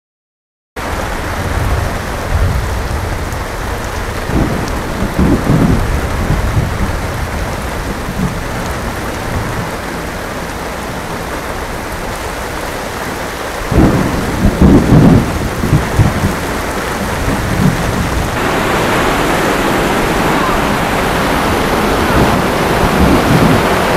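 Steady rain with thunder rolling twice, about four seconds in and again about fourteen seconds in. The rain grows louder about eighteen seconds in.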